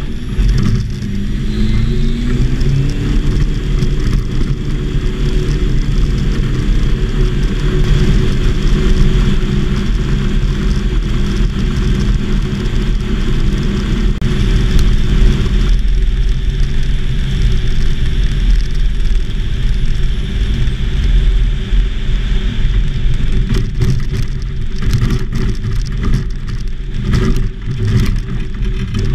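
Light aircraft engine and propeller running steadily, heard from inside the cockpit of a homebuilt Volksplane VP-2 on skis. The engine pitch rises about two seconds in, and the sound turns duller about halfway through.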